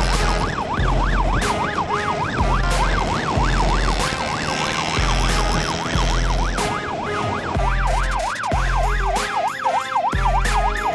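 Electronic police siren in a fast yelp, its pitch sweeping up and down several times a second, over background music with a pulsing bass beat.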